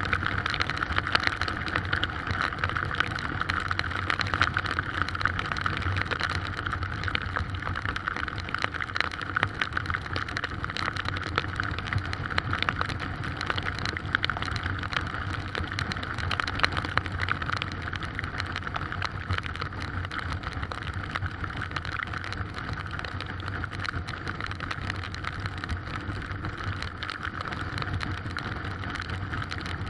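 Heavy rain in strong wind: a steady rushing noise with dense patter of raindrops and a low steady hum underneath.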